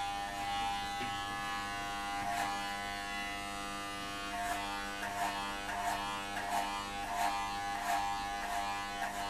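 Corded electric hair clippers buzzing steadily while cutting hair, with short repeated surges about every two-thirds of a second in the second half.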